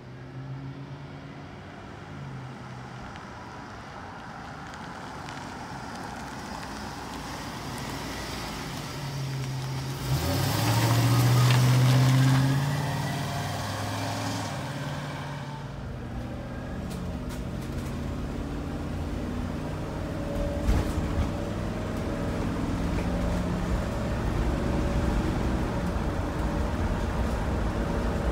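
Chevrolet 3500 Girardin mini school bus driving past: engine and tyre noise grow louder, peak about ten to twelve seconds in, then fade away. From about sixteen seconds in, steady engine and road rumble heard from inside the cab while driving, with a few sharp knocks.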